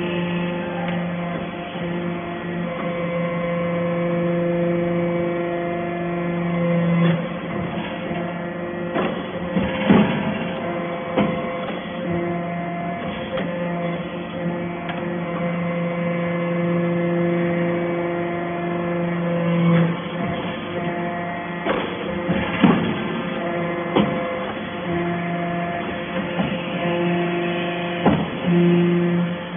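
Hydraulic chip-baling machinery running with a steady hum that swells and drops back several times, broken by occasional sharp metal knocks.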